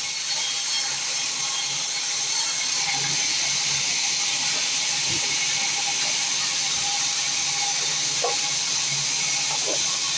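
Small wood sawmill running, giving a steady hiss with a faint steady tone underneath.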